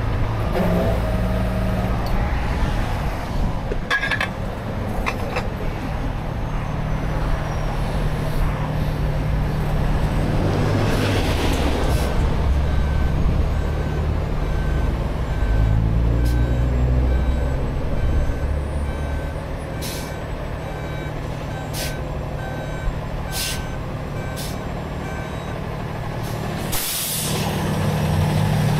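Heavy-duty tow truck's diesel engine running, its speed rising and falling several times. A faint beeper sounds about once a second through the middle, and a sharp burst of air hiss comes near the end.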